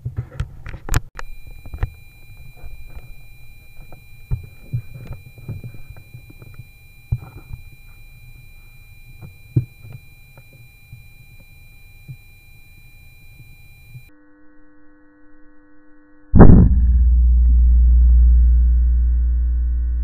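Small clicks and knocks of gun and scope-camera handling over faint steady high tones. About 16 seconds in, a sudden loud boom falls in pitch into a long, deep, steady drone that slowly fades, an added dramatic sound effect rather than the air rifle's own report.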